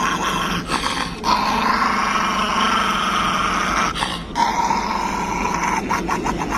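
Small black-and-tan dog growling continuously with its teeth bared, a warning growl at having its muzzle and paw handled. The growl breaks off briefly about a second in and again about four seconds in, and turns into a few short choppy growls near the end.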